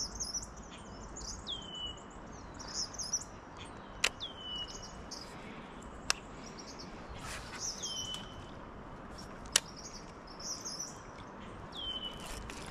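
Songbirds singing: one repeats a short call that drops in pitch and levels off about every three to four seconds, with higher trilling around it. A few sharp clicks stand out louder than the birdsong.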